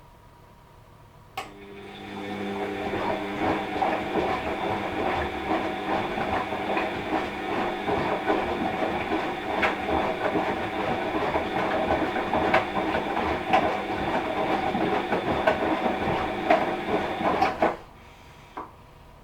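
Washing machine drum turning: a click, then the motor starts and the wash tumbles for about sixteen seconds with many irregular knocks, stopping abruptly; a single click follows.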